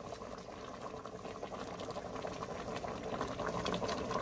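Pot of bamboo-shoot curry at a rolling boil, a steady bubbling and popping that gradually gets louder.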